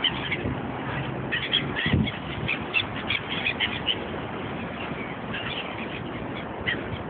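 Gulls calling: many short, harsh squawks in quick runs, thickest in the first half and scattered after, over a steady background hiss.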